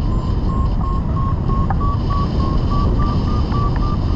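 Airflow rushing over the microphone in flight, with a hang-gliding variometer beeping about three times a second, its pitch slowly rising: the climb tone of a glider gaining height in a thermal.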